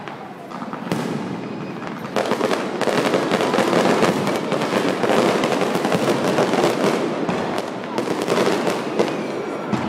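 Aerial fireworks going off in rapid succession, a dense run of crackling and popping bursts that grows much louder about two seconds in and stays loud.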